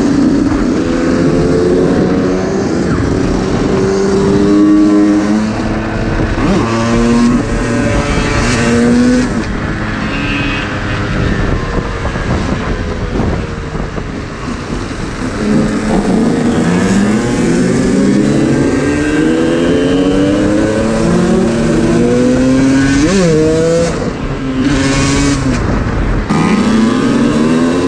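Two-stroke moped engine revving, its pitch climbing and dropping again over and over as it accelerates.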